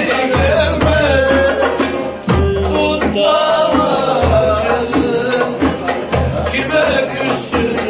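Turkish folk music played live: a wavering melody line over a regular beat of low drum strokes.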